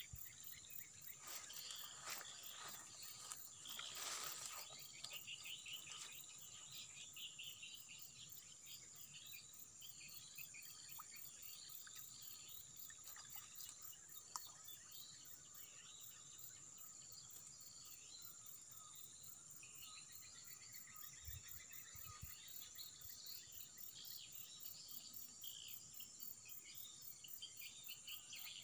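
Insects chirring steadily: a high, even buzz with a fast, very high pulsing above it.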